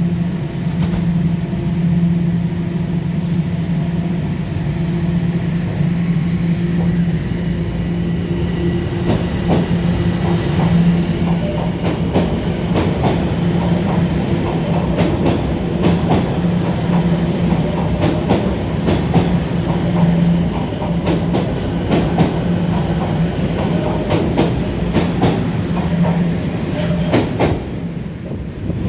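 Toronto TTC Line 1 subway train running with a steady low electric hum. From about nine seconds in, the wheels click and clack over rail joints.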